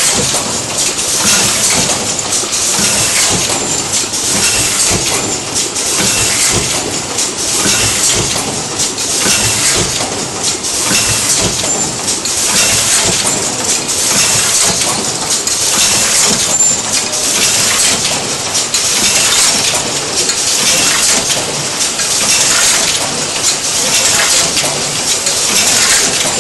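End-load cartoner running on a bottle packaging line: a loud, steady hissing clatter of mechanical and pneumatic motion, with a loose repeating pulse.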